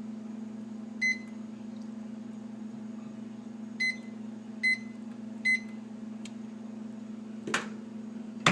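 Microwave oven keypad beeping as the cooking time is punched in: one short high beep, then after a pause three more a little under a second apart, over a steady low hum. A couple of faint clicks follow, then a louder knock at the very end.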